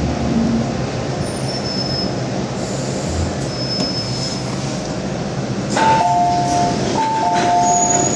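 MTR Island Line M-Train running into a station, a steady rumble with short high squeals from the wheels or brakes. About six seconds in, a two-note chime, high then lower, sounds twice.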